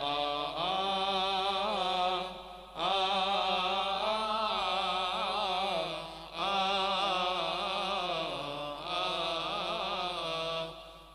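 Coptic church hymn chanted by male voices: long, drawn-out melismatic phrases with wavering ornaments on each note, breaking for breath about every three seconds.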